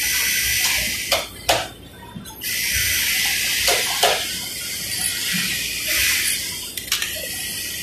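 Industrial sewing machine stitching in two spells, a short one at the start and a longer one from about two and a half seconds in, with a steady high whine; a few sharp clicks between.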